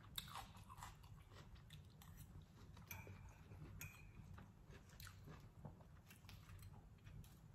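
Faint mouth sounds of someone chewing fried fish, with scattered light clicks of a metal fork picking at the fish on a plate.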